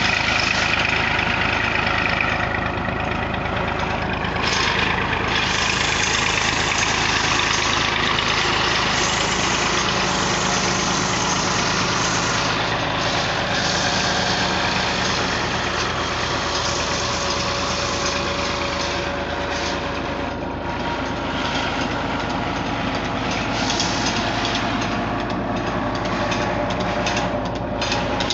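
Massey Ferguson 240 tractor's three-cylinder diesel engine running steadily, driving a tubewell pump by a flat belt from its rear pulley.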